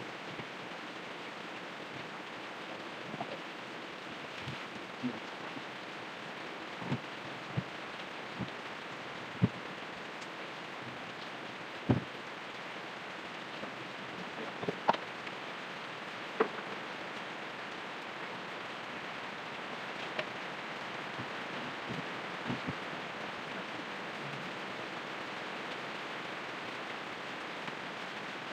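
Steady hiss with scattered clicks and light knocks, the loudest about a third of the way in.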